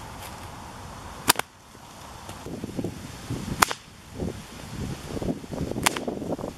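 A 2.3-metre brown leather cattle whip cracking three times, a little over two seconds apart, each crack sharp and sudden.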